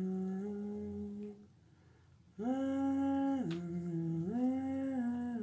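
A person humming a tune in a small room: held notes that step up and down between a few pitches, breaking off for about a second near the middle before picking up again.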